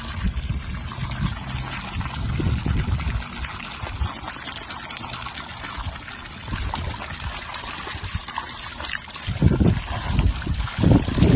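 Water from a garden hose splashing steadily into a plastic wading pool, churning the water's surface. A few louder low thumps come near the end.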